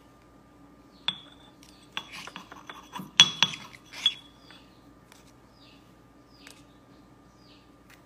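A pestle and a cockatiel's beak clinking and scraping in a ceramic mortar of seed: a few sharp, briefly ringing clinks about a second in, then a quick cluster of them up to about four seconds in.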